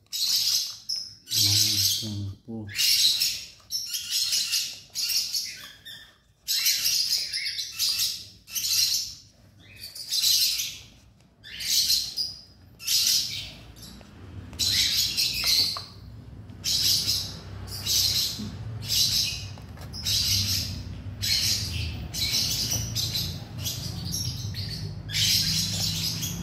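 Baby plantain squirrels giving repeated high-pitched squeaking calls, each under a second long, about one a second. A low rumble sits beneath them from about halfway through.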